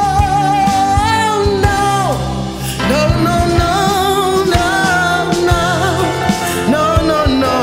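Woman singing a gospel song over instrumental accompaniment with a beat. She holds one long wavering note that falls away about two seconds in, then sings a run of repeated "no, no, no".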